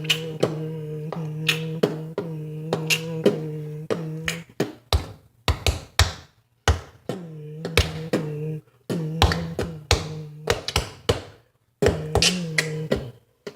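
A person humming held notes on one steady pitch, stopping and starting several times, with sharp clicks and taps throughout, some falling in a rough rhythm while the humming runs.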